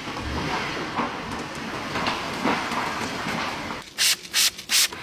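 A car runs with a steady low rumble at first. Then three short, loud hisses come about 0.4 s apart, like a trigger spray bottle spraying cleaner onto a leather car armrest.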